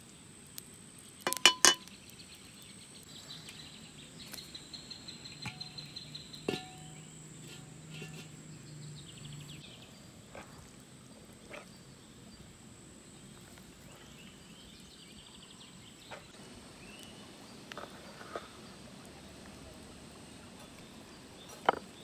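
A wooden spoon knocks twice against the rim of a metal pot about a second and a half in, followed by scattered soft taps and clicks of hands handling food, over a faint steady high whine.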